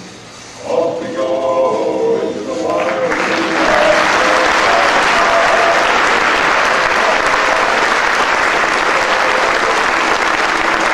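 A choir's last sung chord, held for a couple of seconds, then an audience breaks into steady applause about three seconds in.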